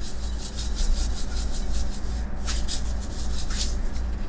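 Hand-twisted spice grinder grinding Chef's Blend seasoning, a steady run of quick rasping clicks.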